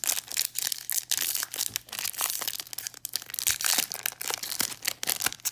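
Crinkling and crackling of a trading-card pack wrapper being handled and torn open, a dense run of sharp crackles.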